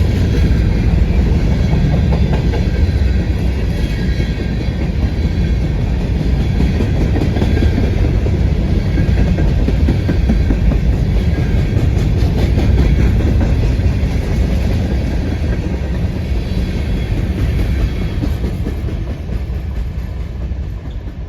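Grain train's covered hopper cars rolling past close by, wheels clattering over the rail joints with a heavy steady rumble; the sound eases off a little near the end.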